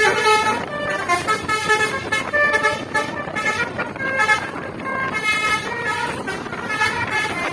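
A bus's Basuri telolet musical horn playing a tune: a run of pitched horn notes stepping up and down one after another without a break.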